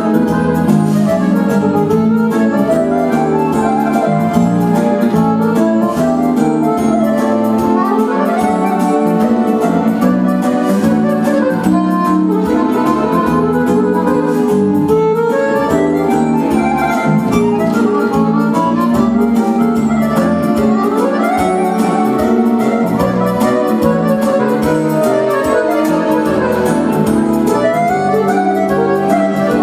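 Fast instrumental music led by an electronic keyboard playing a busy melody over a steady beat.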